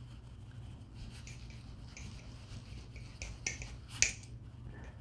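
Faint light clicks of a MachineWise Mayrn Lite balisong's handles being shaken up and down in a tap test, with a few sharper clicks between three and four seconds in. There is no blade tap, the sign of very tight pivot tolerances.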